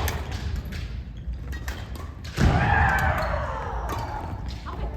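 A few sharp smacks, then about halfway through a loud, long drawn-out shout lasting about two seconds, a kendo kiai yell.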